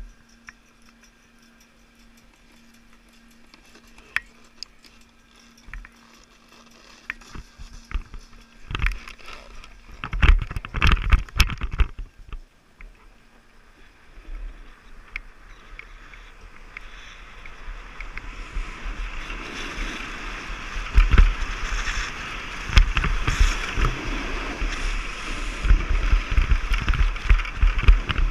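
Snowboard sliding and carving over groomed snow, a scraping hiss that is faint at first and grows louder from about halfway, with knocks and low rumble on the body-worn camera.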